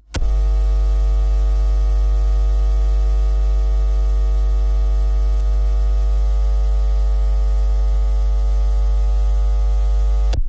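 Loud, steady electrical hum with a harsh buzzing edge and static hiss, switching on abruptly at the start and cutting off abruptly about ten seconds later.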